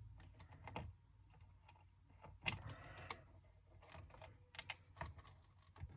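Faint, scattered clicks and taps of wire ends being fitted into the terminals of an electronics kit board.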